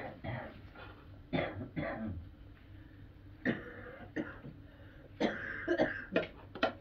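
Someone coughing and clearing their throat several times, in short separate sounds.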